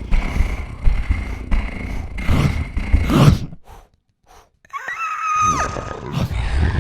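Sound effects made with a human voice and mouth: rough growling and groaning noises with sliding pitches. About halfway through they drop out for roughly a second, then a high, held squeal comes in and slides down.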